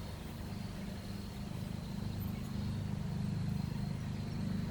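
A steady low hum from a running machine in the room, with a fast even pulsing to it and a faint thin high tone above.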